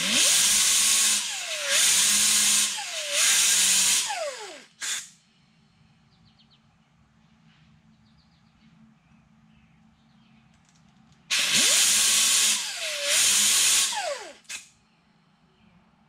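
Air-powered hand tool, most likely a pneumatic die grinder, sharpening a baler twine knife. It runs in short hissing bursts of about a second each: three in a row, a short one, a pause of about six seconds, then two more and a short one. Within a burst its whine dips in pitch and recovers.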